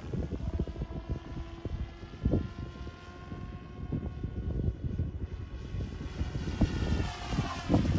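Raw 420 electric radio-controlled helicopter flying high overhead, its rotor and motor giving a thin steady whine. Wind buffets the microphone throughout, and this rumble is louder than the helicopter.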